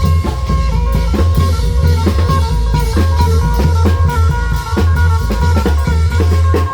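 Isan klong yao long-drum band playing live: a steady, loud drum beat over a heavy bass, with a melody line on top.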